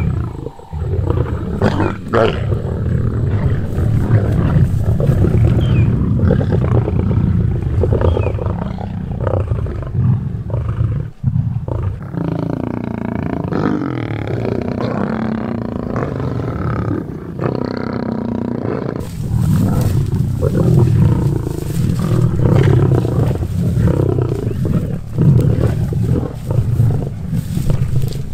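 Lions growling and snarling without a break as they squabble over a buffalo calf carcass.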